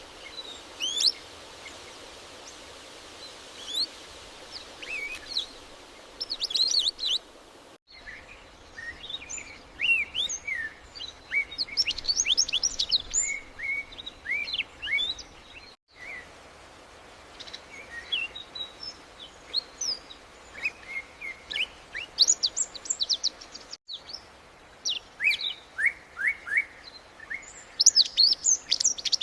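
Several birds chirping and calling at once, with quick, high, overlapping chirps and sweeps over a faint steady hiss. The sound drops out for a split second about every eight seconds.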